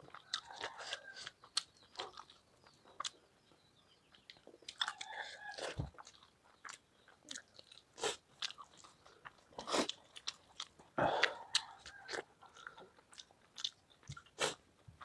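Chewing and wet mouth smacks of a person eating rice and palak paneer by hand, with irregular light clicks and scrapes of fingers on a steel plate.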